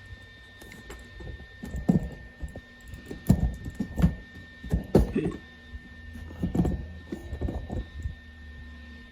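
A series of irregular knocks and thunks, as of the metal frame of a homemade welded dolly being handled and shifted, over a faint steady hum.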